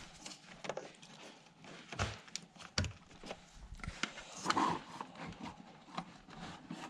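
Handling noises: scattered light clicks and knocks with a few soft bumps, about two seconds in and again around four and a half seconds, as a set-top box and its power adapter are handled during a power-supply swap.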